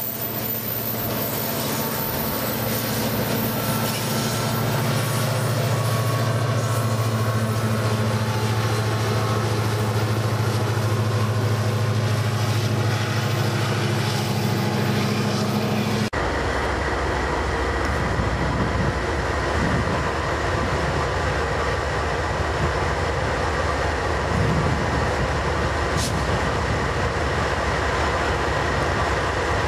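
EMD SD40-2 diesel freight locomotives working a long freight train around a curve: a steady engine drone under thin wheel squeal. About halfway in it cuts to a louder, rougher locomotive rumble heard close to the track, with a single sharp click near the end.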